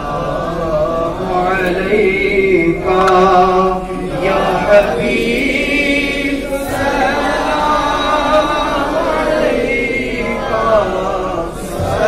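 Group of men chanting a devotional recitation together, one voice leading into a hand-held microphone, in sung phrases a few seconds long with brief breaks between them.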